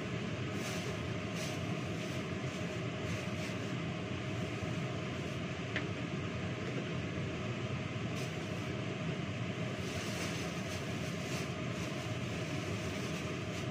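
Steady whirring noise of an electric fan, with a few light clicks and knocks of vegetables and utensils handled at a sink.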